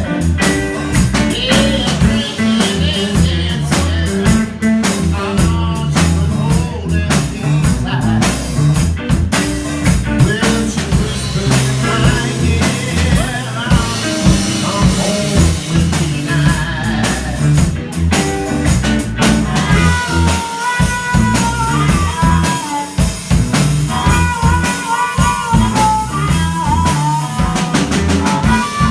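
Blues band playing live, with drum kit, bass and guitar. About twenty seconds in, a wavering, bending lead melody comes to the front.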